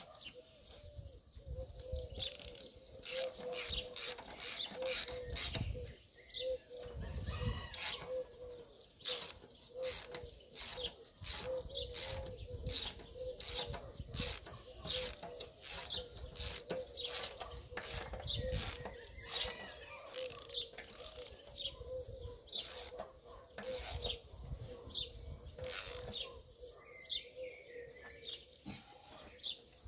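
Repeated sharp metallic clicks and taps, roughly one or two a second, from hand tools working on the drum mower's bolts.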